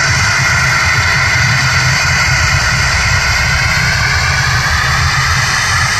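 ATR 72-500 turboprop's engines and six-blade propellers running as the aircraft rolls along the runway: a loud, steady whine of several held tones over a low rumble, edging slightly up in pitch near the end.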